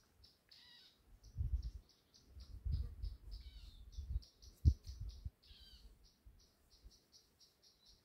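An insect chirps in a steady train of short high notes, about three to four a second, while birds give a few descending calls over it. Low rumbling thumps come and go in the first half and are the loudest sounds.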